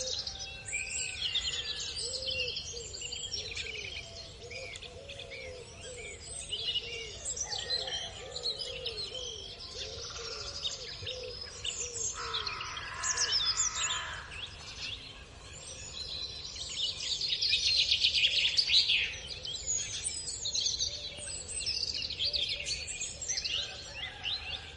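Several small birds chirping and singing together, with a lower call repeating about twice a second underneath through the first half.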